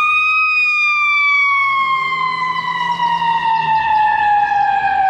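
Ambulance siren wailing: one long, slow tone that peaks about half a second in and then glides steadily down in pitch.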